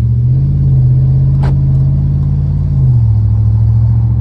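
Hemi V8 pickup with its new exhaust, heard from inside the cab while driving with the windows down and the rear slider open: a steady low engine drone that is not overly loud in the cabin. The pitch rises slightly about half a second in and settles back near three seconds. There is a single brief click about halfway through.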